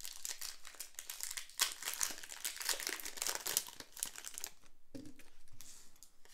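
A Pokémon TCG booster pack's shiny foil wrapper being torn open and pulled apart by hand: dense crinkling and crackling of the foil for about four and a half seconds, then dying down to a few quieter rustles.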